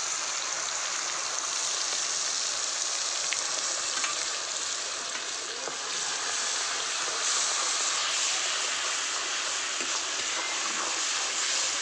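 Onion paste sizzling steadily as it fries in hot oil in a steel kadai while a steel spatula stirs it, with a few light clicks through the hiss.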